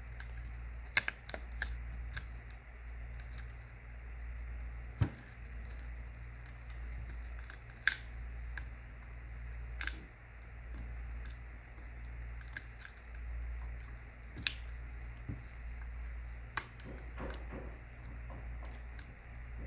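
Irregular small clicks and taps of a prying tool working under a smartphone's LCD to lift it from the frame, with a few sharper clicks among them, over a steady low hum.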